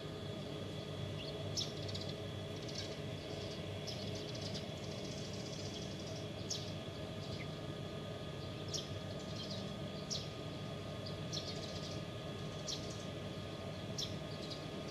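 Small birds chirping, short high calls every second or two, over a steady low background hum.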